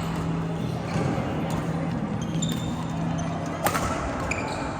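Badminton rally: rackets striking the shuttlecock in sharp cracks, the loudest about three-quarters of the way through, with short squeaks of shoes on the court floor between hits.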